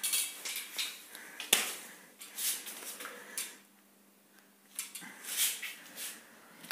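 Rustling and handling sounds of hands on a freshly taped gauze boxing hand wrap as the fist is closed and held, with one sharp knock about one and a half seconds in.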